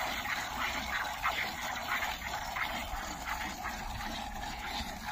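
Cow being milked: jets of milk squirting into a bucket in a quick, even rhythm of about two to three squirts a second.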